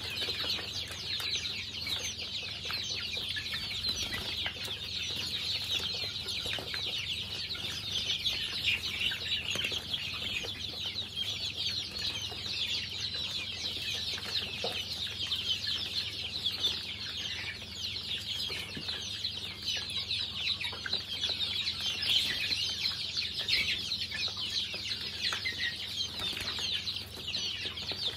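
A flock of young chickens peeping continuously: a dense, unbroken chorus of high chirps.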